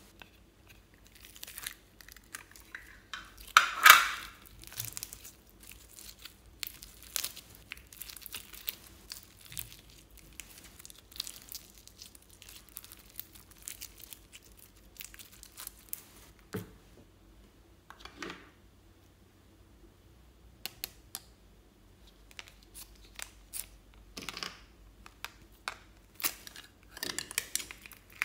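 Hands working sticky slime and bead-filled floam, giving irregular crackling and squelching pops as the slime is stretched and the foam beads are squeezed. The loudest crackling burst comes about four seconds in.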